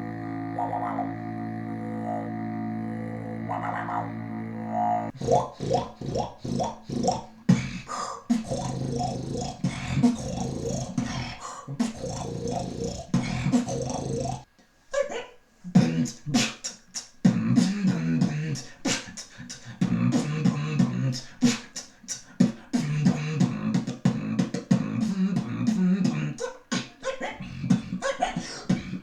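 Beatboxer's mouth and voice making sound effects. It opens with a steady low droning vocal tone for about five seconds. Then it breaks into rhythmic beatboxing of sharp percussive clicks and pops over sung bass tones, pausing briefly about halfway.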